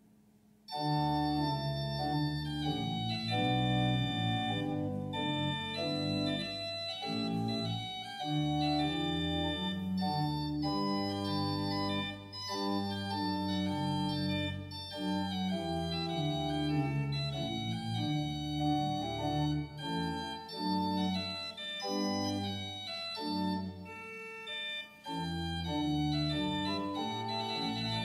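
Organ music: slow, held chords that change every second or so, starting about a second in after a brief silence.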